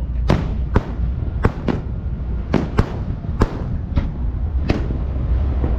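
Fireworks display: a rapid, irregular series of sharp bangs, about nine in under five seconds, over a steady low rumble.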